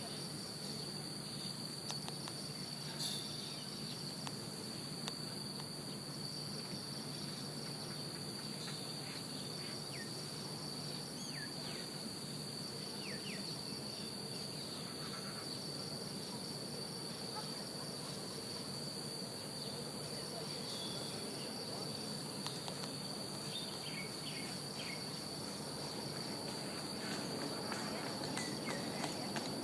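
Steady, high-pitched insect chorus, a continuous cricket-like trill, with a few brief chirps here and there.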